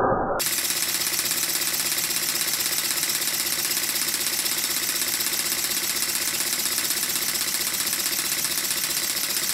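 Stuart triple expansion model steam engine running on compressed air: a steady, rapid, even pulsing hiss of exhaust air with the engine's mechanical running. It cuts in suddenly about half a second in, replacing a brief muffled sound.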